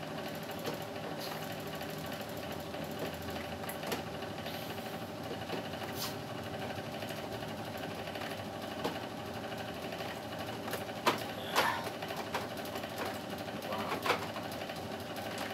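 Steady mechanical hum of a running motor, with a few short clicks and taps from a screw being worked out of the air conditioner's plastic front cover.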